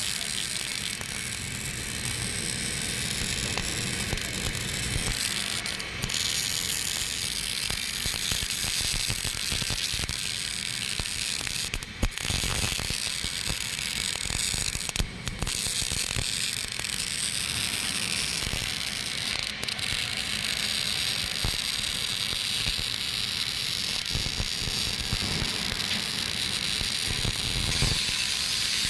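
MIG (GMAW) welding arc at about 105 A and 15.7 V running an open root pass, a steady rapid crackle typical of short-circuit transfer. It breaks off briefly twice around the middle.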